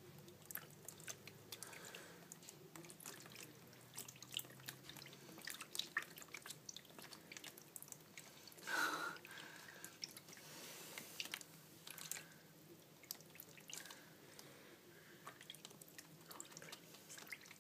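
Faint, irregular patter of tiny splashes and clicks as Roborovski dwarf hamsters scamper through ankle-deep water in a plastic tub. A brief louder swish comes about nine seconds in.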